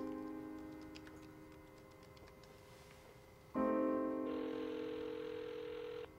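Background music: piano chords. One chord rings out and fades, a second is struck about three and a half seconds in, and a held note joins it before the music cuts off shortly before the end.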